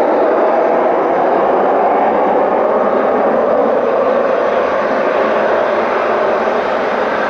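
Eurofighter Typhoon's twin jet engines running loud and steady, easing off slightly in the last couple of seconds.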